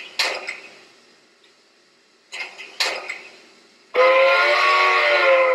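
SoundTraxx Tsunami2 sound decoder in a Bachmann Shay playing through the locomotive's speaker: a few short bursts, then a loud multi-tone steam whistle blown for about a second and a half near the end.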